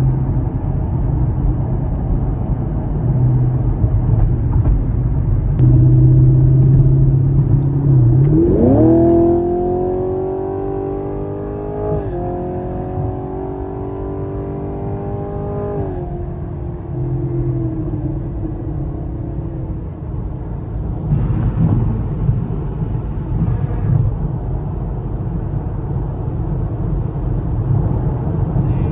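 Chevrolet Camaro SS V8 engine heard from inside the car: a steady cruising drone, then a hard acceleration about eight seconds in with the engine pitch rising, a drop at a gear change about twelve seconds in, a second rising pull until about sixteen seconds in, then back to a steady drone with road noise.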